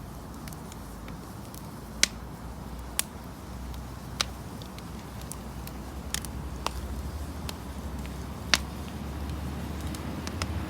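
Firewood crackling in a burning bonfire: irregular sharp pops, the loudest about two, three, four and eight and a half seconds in, over a steady low rumble of wind.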